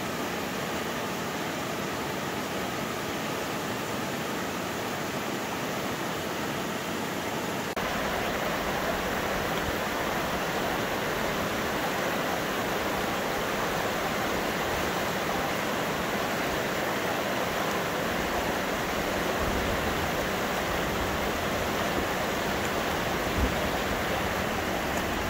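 A shallow, rocky mountain river rushing steadily over rapids, a constant hiss of running water that steps up a little in loudness about eight seconds in.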